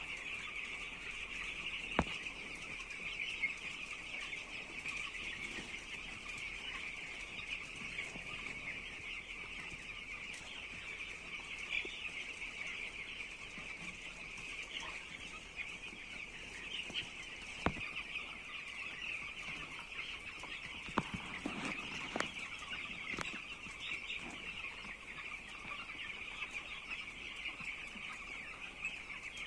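A large flock of nine-day-old chicks cheeping continuously, many high peeps overlapping into a steady chorus, with a few short sharp knocks.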